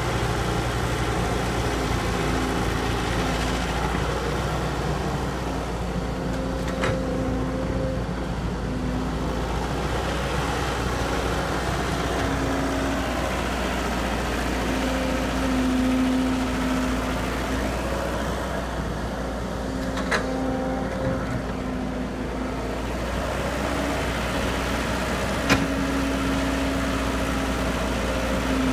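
Excavator's diesel engine running steadily, its note swelling and easing every few seconds as the hydraulics take load while it digs and loads soil. Three short sharp knocks come through, the loudest near the end.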